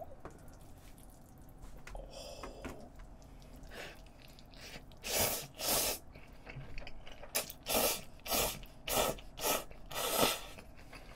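A person slurping cold spicy bibim-myeon noodles off chopsticks: about ten short, wet slurps, two about halfway through and then a quick run of seven or eight near the end.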